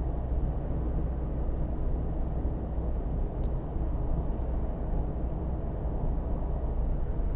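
Steady cabin noise inside a Mazda2 with the 1.5-litre SKYACTIV-D turbodiesel, cruising on the road: a low, even rumble of engine and tyres.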